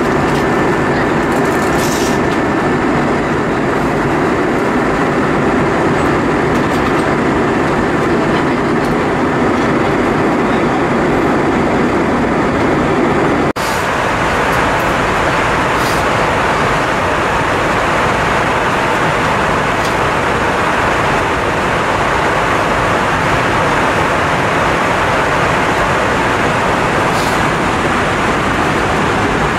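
Steady cabin noise of an Airbus A320-232 airliner in flight: the constant rush of airflow and its IAE V2500 engines. A faint steady whine sits over it at first; about halfway the sound changes suddenly, with less low rumble and more hiss.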